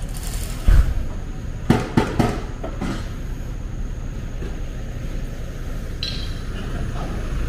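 A dull thud, then a quick run of four sharp knocks, over a steady low rumble.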